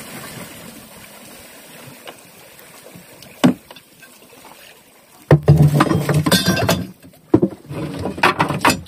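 Small fishing boat at sea: its engine falls away at the start, a sharp knock comes about three and a half seconds in, then two loud spells of rough noise and knocks on board from about five seconds in.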